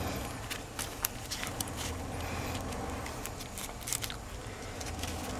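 Green leaves crackling and rustling in irregular sharp clicks as hands fold and tie them around a rice dumpling. A low steady hum runs underneath.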